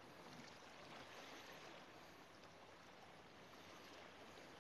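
Near silence: a faint, steady outdoor hiss with no distinct event.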